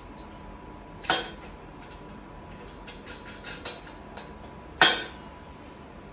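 Ratchet socket wrench with a 17mm socket clicking in short runs as nuts are tightened, with a few sharp metal clinks, the loudest near the end.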